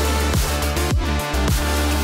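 Background electronic music with a thumping beat about twice a second over a steady deep bass.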